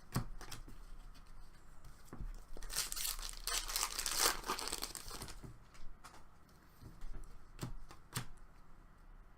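A hockey trading card pack's foil wrapper being torn open and crinkled, a rustling tear lasting about two and a half seconds in the middle, with light clicks and taps of cards being handled before and after.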